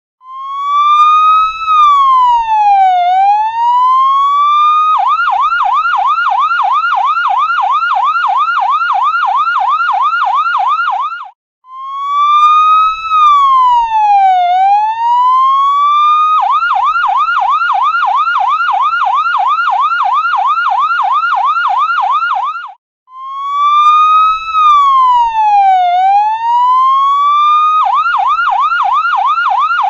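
Electronic ambulance siren, a slow wail that dips and rises over about four seconds, then switches to a fast yelp of about three to four sweeps a second. The cycle repeats three times, each restart marked by a brief break.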